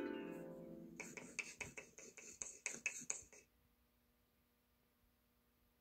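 Cartoon title-card sound effects played through laptop speakers: a descending musical glide fades out, then a quick run of sharp taps, about five a second, stops about three and a half seconds in. A faint steady hum remains.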